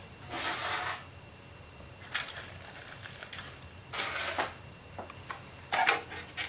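Small hard model parts clicking and clattering as they are picked up and handled on a workbench, in a few short bursts of rattling.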